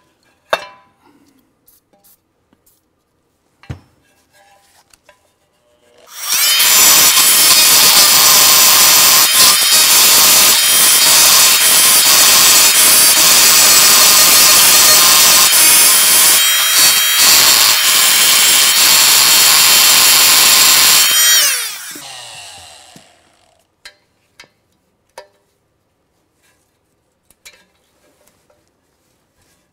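Oscillating multi-tool fitted with a custom wrench head, running loud and steady for about fifteen seconds to vibrate two rust-frozen stud nuts and work penetrating oil into their threads. It starts about six seconds in, winds down after switching off, and light metal clicks follow.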